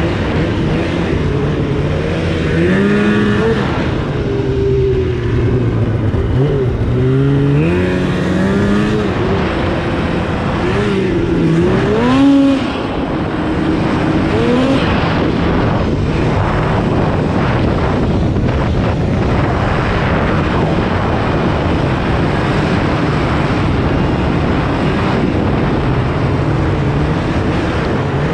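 Polaris RMK 800 mountain snowmobile's two-stroke twin, fitted with a Bikeman aftermarket exhaust can, running on the trail. Its pitch rises and falls with the throttle through the first half, peaking in a short rev about twelve seconds in, then it runs steadily under throttle.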